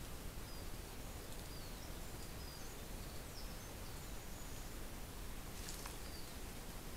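Steady background hiss with faint, short, high bird chirps scattered throughout. About six seconds in, a brief rustle as the moose steps through the grass.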